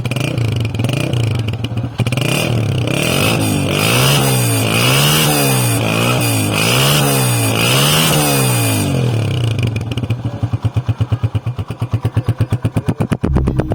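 Honda CG125's single-cylinder engine running, then revved repeatedly, its pitch rising and falling about every second and a half. Near the end it drops back to an evenly pulsing beat.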